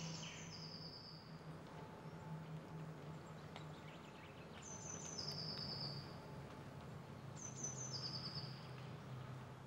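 A songbird repeating one short song three times, a few seconds apart: a fast high trill that steps down into a slightly lower trill. A faint steady low hum runs underneath.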